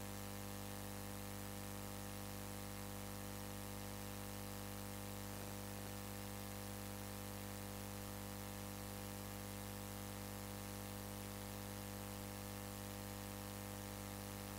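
Steady electrical hum with hiss, low and unchanging, with no other sound standing out.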